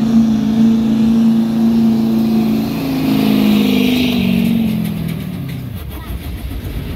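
Pickup truck engine at high revs, pulling a weight sled down a dirt pull track. It holds a steady pitch, then drops in pitch and fades from about four seconds in as the pull winds down.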